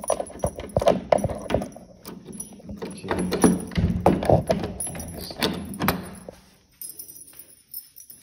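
A bunch of keys jangling, with clicks and knocks of handling, for about six seconds, then it goes much quieter.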